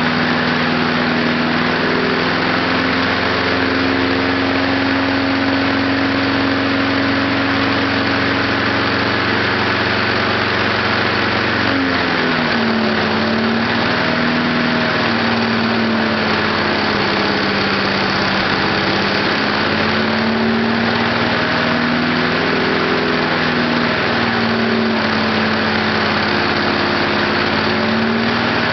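Small lawnmower engine running steadily on heated gasoline vapor from a homemade vapor kit. About twelve seconds in its speed drops a little, then wavers gently up and down.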